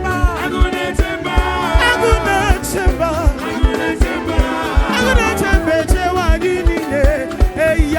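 Live gospel praise music: voices singing with vibrato over a band, driven by a quick, steady kick-drum beat.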